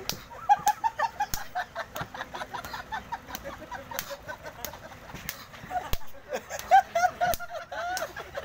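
Open-hand slaps landing on bald heads, sharp smacks about every second or two, over a steady run of short, high, chirping calls.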